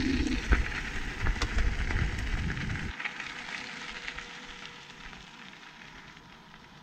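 E-bike tyres rolling over a loose gravel track, a steady crackling crunch with a low rumble. About three seconds in the rumble drops away and the crunching grows quieter, fading toward the end.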